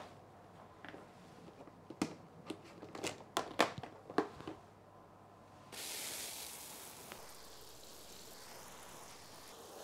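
Hard plastic seed boxes clacking and knocking against each other as they are lifted out of a plastic storage case, several sharp clicks over a few seconds. Then, about six seconds in, a steady hiss of a garden hose spray nozzle watering soil.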